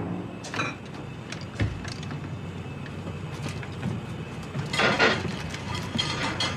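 Small clicks and clinks of food containers being handled on the wire shelves of an open refrigerator, over a low steady hum. About five seconds in comes a louder rustle as a foil-covered plate is slid off the shelf.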